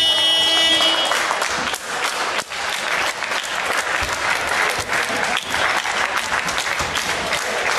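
Spectators applauding at a basketball game. A scoreboard buzzer sounds into the first second, then dense clapping continues.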